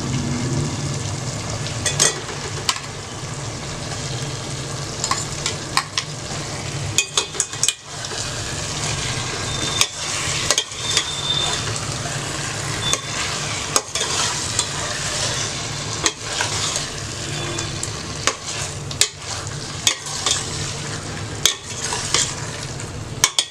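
Biryani gravy with fried chicken pieces sizzling in a pan while being stirred, a steady frying hiss with a spoon repeatedly knocking and scraping against the pan.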